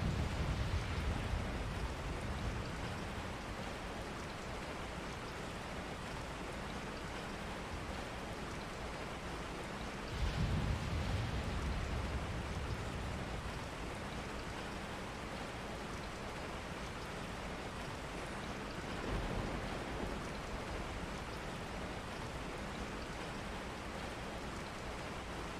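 Steady rain ambience, an even hiss of falling rain, with low rumbles swelling up near the start, about ten seconds in and again around nineteen seconds.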